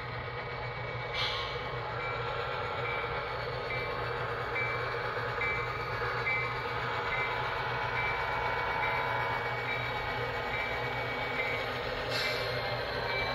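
HO scale model locomotive's sound decoder playing train sounds: a steady engine rumble with a short high tone repeating a little more than once a second. There are two brief hisses, one about a second in and one near the end.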